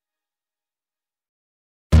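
Dead silence, then background music with deep bass cuts in abruptly near the end.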